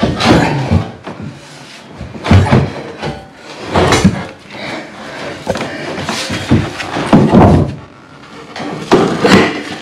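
A steel RSJ beam being shoved and dragged over wooden floorboards: irregular scrapes and heavy knocks of steel on timber, the loudest about four seconds in and again between six and seven and a half seconds.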